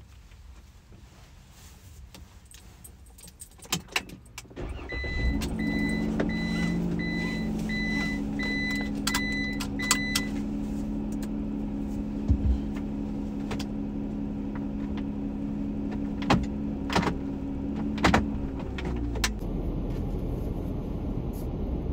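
A few clicks and key jangles, then the van's engine starts about five seconds in and idles steadily. A dashboard warning chime beeps repeatedly for about five seconds after the start, with scattered clicks from the cab. The engine's steady hum fades near the end.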